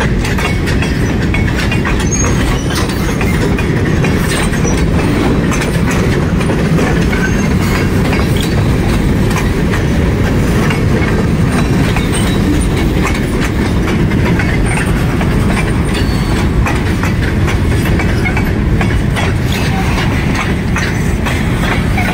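A freight train's empty covered grain hopper cars rolling past close by: a steady rumble of steel wheels on rail, with frequent clicks and clacks from the wheels.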